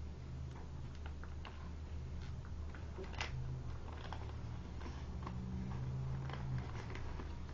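Origami paper being folded and creased by hand: scattered soft crackles and ticks, over a steady low hum.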